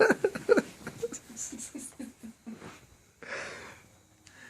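A man laughing, the laughter trailing off into short breathy, wheezy pulses, then a long breath out about three seconds in.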